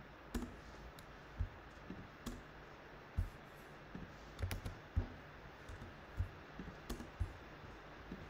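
Computer keyboard and mouse clicking: a string of single, irregularly spaced clicks, faint, as text is edited and pasted into a code editor.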